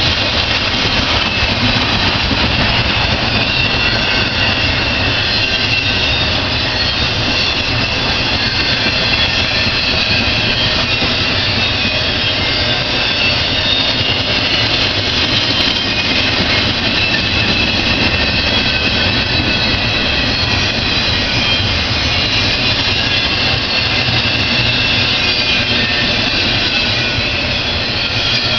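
Empty intermodal cars rolling past at speed, a steady loud rumble and roar of steel wheels on the rails.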